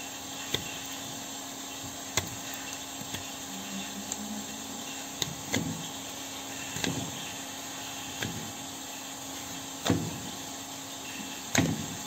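Hoof knife paring the horn of a cow's claws in short strokes: about eight brief sharp scrapes and creaks, the loudest near the end, over a steady low hum.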